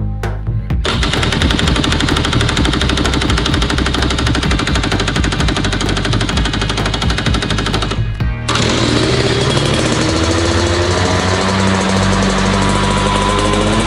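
Rotax two-stroke kart engine running with a fast, rattling firing, cutting off abruptly about eight seconds in. Background music plays underneath.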